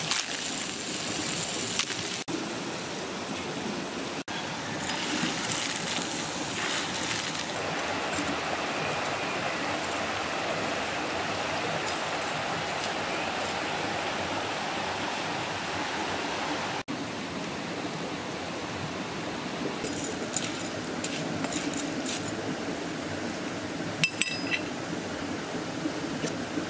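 A stream running over rocks, a steady rush of water. Near the start, small shellfish sizzle in a clay frying pan. Later come a few sharp clinks of the shells.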